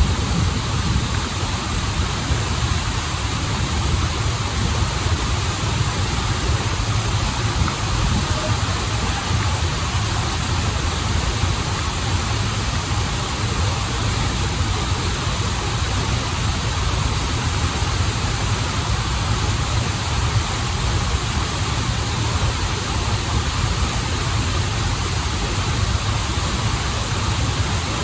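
Waterfall and river water rushing steadily, a deep rumble under a bright hiss.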